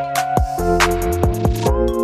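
Electronic background music: a beat of deep drum hits under held synth notes that change chord now and then.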